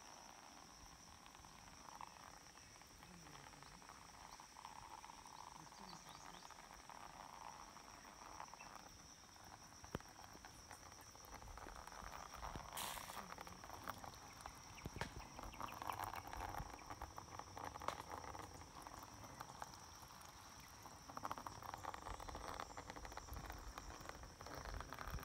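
Faint rural ambience: a steady high-pitched insect drone, with patches of softer background noise and a few scattered light clicks.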